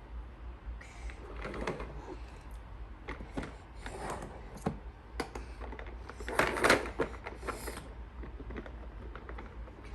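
Plastic Play-Doh toy pieces and tools handled on a table: scattered light clicks and rustles, with a louder scraping rustle about six and a half seconds in.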